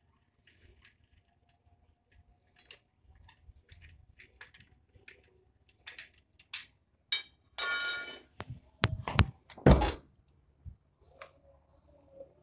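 Metal clicks and a short ringing metallic rattle, then three heavy thunks, as a Suzuki Carry's front shock absorber and coil spring are worked loose from their mounting. The first half holds only faint scattered ticks.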